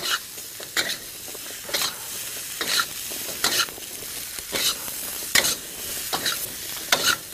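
Zucchini pieces sizzling as they fry in a wok, stirred with a utensil that scrapes through them about once a second.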